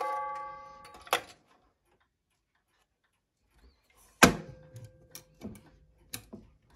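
Pendulum wall clock's strike ringing out and fading over about a second, the tail of the hour strike. After a gap, a loud sharp click with a brief ring, then a few scattered clock ticks.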